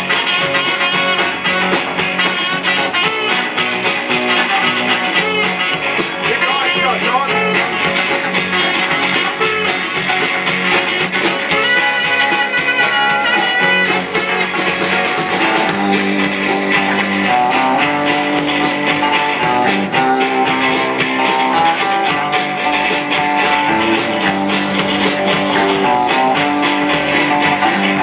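Live blues-rock band playing: electric guitars over a drum kit with a steady beat, and a saxophone.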